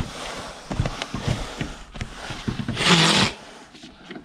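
Brace wrench spinning wheel nuts onto a tractor's front wheel hub, with metal clinks and scraping. A louder noisy burst comes about three seconds in.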